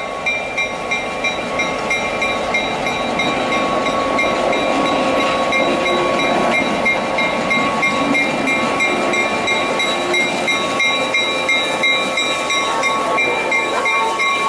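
California Western diesel locomotive No. 64 running slowly past at close range, its engine loudest in the middle as it goes by, with a bell-like ringing that repeats about twice a second throughout.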